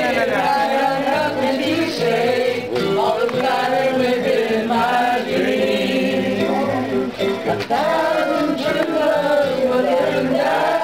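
A group of people singing together, with an accordion playing along.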